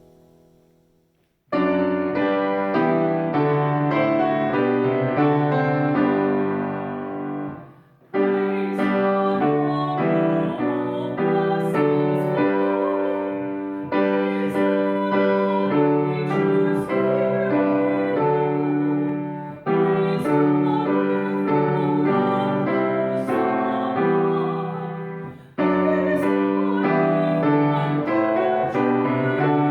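Piano playing slow music in phrases of about six seconds, each fading slightly and separated by a brief break.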